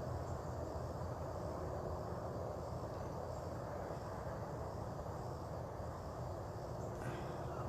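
Steady outdoor background: a low, even rumble with a faint, continuous high insect drone over it.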